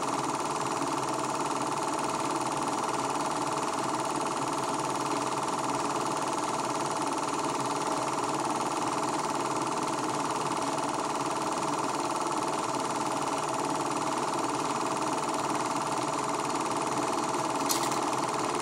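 Movie projector running steadily, its motor whirring and shutter clattering evenly as the home movie is played, with a sharp click near the end.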